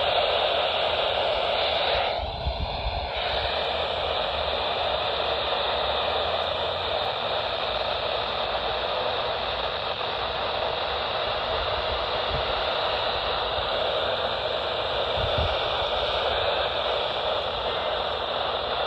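Weather radio receiver putting out steady static hiss with no broadcast coming through. The hiss briefly changes character about two seconds in.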